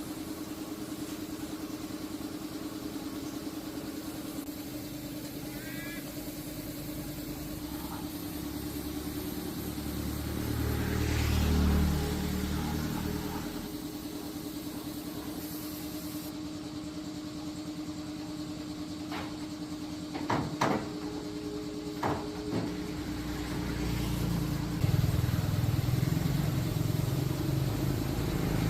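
An engine running steadily, growing louder twice, about a third of the way in and again near the end, with a few sharp knocks past the middle.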